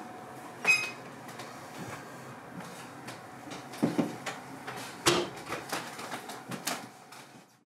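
A wooden casement window with a metal latch being handled and shut: a sharp metallic clack about a second in, then a few hollow wooden knocks and clicks around four and five seconds, fading out near the end.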